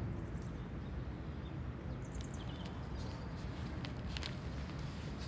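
Quiet room tone: a low, steady rumble and hiss with a few faint, brief high ticks.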